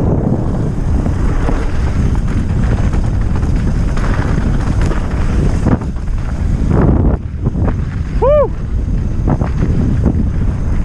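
Wind rushing over an action-camera microphone during a fast downhill mountain-bike descent, with the bike knocking and rattling over the trail. About eight seconds in, a brief squeak rises and falls in pitch.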